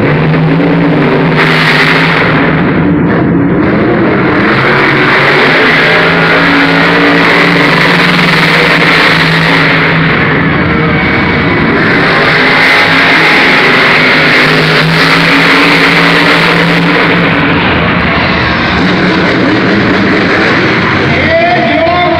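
Monster trucks' supercharged V8 engines running loud at racing throttle, the engine note revving up and down.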